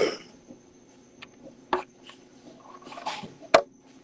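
Faint steady room hum with a few scattered sharp clicks and a short rustle about three seconds in, followed by the loudest click.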